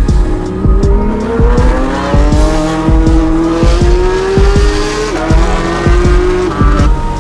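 Porsche 911 GT3 (gen 2) flat-six with a full Fi exhaust accelerating hard: its note climbs steadily with the revs and dips briefly about five seconds in at a gear change. Background music with a steady beat plays underneath.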